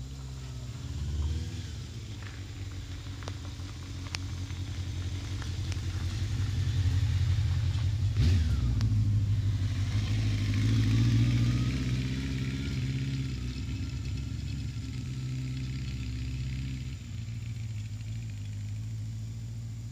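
1984 Honda CB700SC Nighthawk's air-cooled inline-four engine running as the motorcycle rides up, grows loud as it passes close by about eight to twelve seconds in, with a drop in pitch as it goes past, then fades as it rides away.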